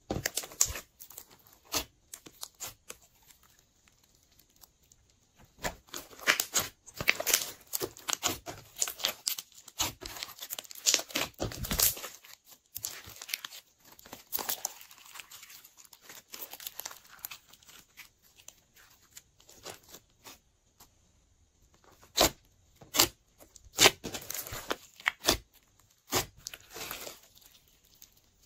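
Glossy slime squeezed, pressed and stretched by hand, making irregular sticky crackles and pops in clusters, with a couple of quiet pauses between them.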